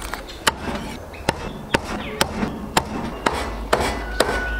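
Chinese cleaver chopping through a poached whole chicken into a wooden chopping block. The strokes are sharp and steady, about two a second.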